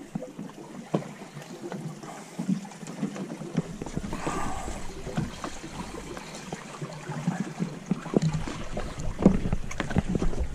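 Wind buffeting the microphone and water slapping against a boat's hull, with scattered sharp clicks and knocks.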